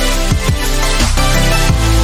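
Loud electronic background music with a heavy bass and a steady beat.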